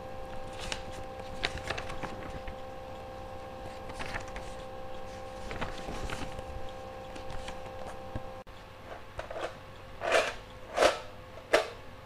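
Quiet room with a steady hum and faint scattered clicks and rustles. Near the end come three loud scratchy strokes a little under a second apart, a ballpoint pen scraping across the lid of a tin pencil box.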